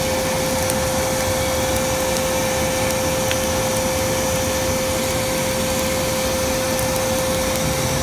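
Electric blower motor of the vacuum-cleaner kind running steadily, forcing air through a hose into a wood fire: a constant whine over a loud rush of air.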